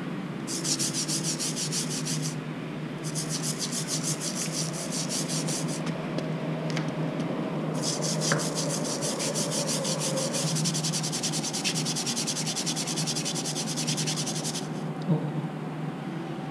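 A small spoon scraped rapidly back and forth on wet concrete, in three spells: about two seconds, about three seconds, then a longer run of about seven seconds. A low steady hum lies underneath.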